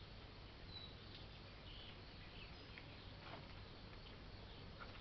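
Near silence: faint outdoor background hiss with a few faint, short, high chirps.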